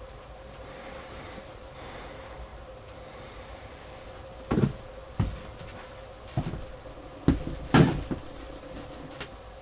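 Whitetail deer coughing: a run of about five short, sharp coughs in under four seconds, starting about halfway in, the loudest near the end of the run.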